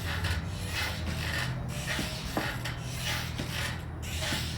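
Repeated short rasping, rubbing sounds at a brisk, fairly even pace, over a steady low hum.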